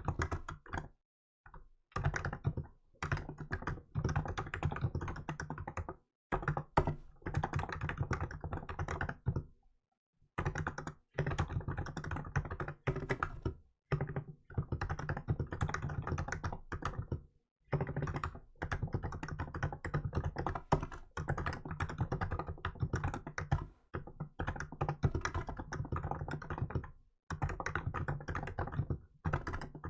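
Typing on a Hansung GK868B electrostatic capacitive keyboard with milk-white keycaps: fast, even runs of keystrokes lasting a few seconds each, broken by short pauses, about six of them across the stretch.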